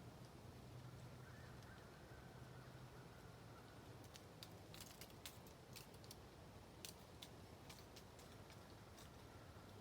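Near silence: a faint steady low hum, with scattered light clicks from about four seconds in.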